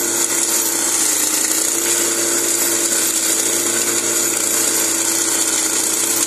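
Walk-behind soil-scraping weeder's 7 HP four-stroke petrol engine running steadily under load as its gearbox drives the machine forward and its rotary blades scrape weeds and topsoil down to bare ground.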